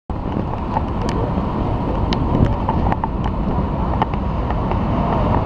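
Storm wind buffeting the microphone in a loud, steady rumble over heavy surf breaking against a harbour jetty, with scattered sharp ticks.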